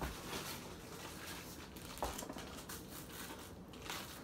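Plastic bags and foil crinkling as food is rummaged through in an open refrigerator, with a light knock at the start and another about two seconds in.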